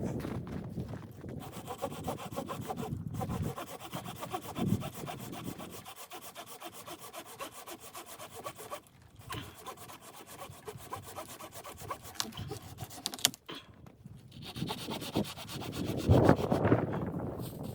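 A saw cutting through wood with a steady scratchy rasp, louder in a few swells.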